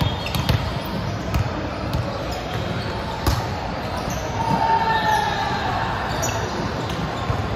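Volleyballs being struck and bouncing on a hardwood gym floor: scattered sharp knocks that echo in a large sports hall, over a background of players' voices.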